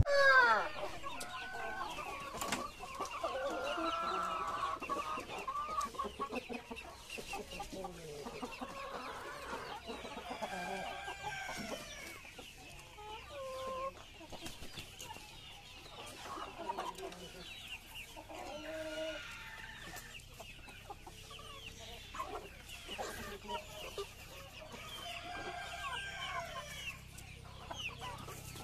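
A flock of Rhode Island Red hens clucking, many short calls overlapping one another.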